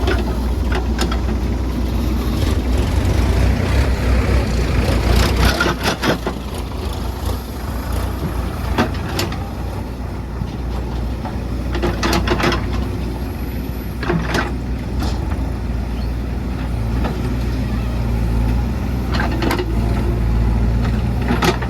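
JCB 3DX backhoe loader's diesel engine running steadily, with a sharp clank or knock every few seconds as the bucket works the mud.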